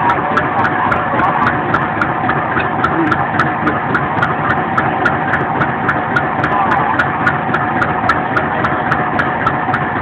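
Boat's diesel engine running steadily, with a regular knock about three to four times a second over a constant hum.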